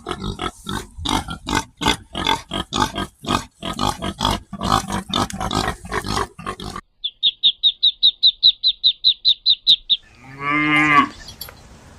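A run of farm animal calls. First comes about seven seconds of rapid, rhythmic grunting-type calls, several a second. Then a fast series of about fifteen short, high notes, and near the end one short, lower pitched call.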